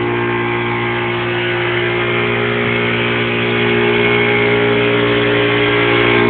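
An engine running steadily at an even idle, with a constant low hum and no change in speed.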